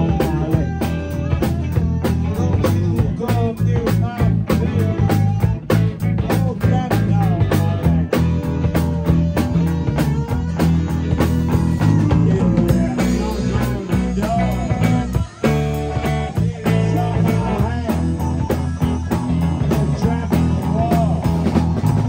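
A live rock band playing: electric guitars, bass guitar and drum kit, with a man singing into a microphone at times.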